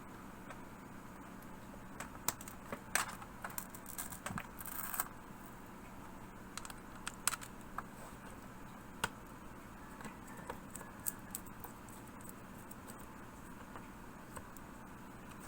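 Small, irregular clicks and taps of a screwdriver and small screws against a laptop's plastic bottom case as the case screws are driven back in, over a faint steady hiss. The clicks come in two clusters, from about two to five seconds in and again from about seven to eleven seconds in.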